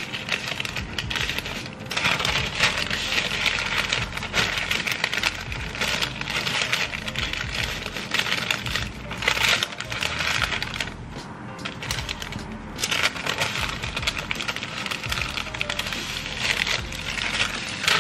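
Sheets of white paper crinkling and rustling as they are handled and folded around meat skewers, a dense run of crackles, with music playing underneath.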